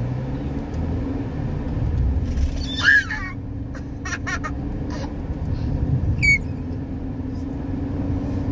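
Steady low rumble of a car's engine and tyres, heard from inside the cabin while driving. Over it come a few short high-pitched calls, about three seconds in and again just after six seconds, and a few clicks in between.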